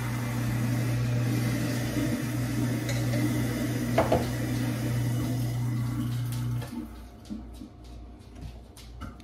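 A household appliance humming steadily, then cutting off suddenly about two-thirds of the way through. There is a single knock about four seconds in, and a few light clicks and taps after the hum stops.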